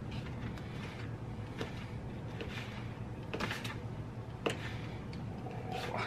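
A knife slicing cooked steak against a cardboard takeout box: a few short, scattered scrapes and taps over a steady low hum.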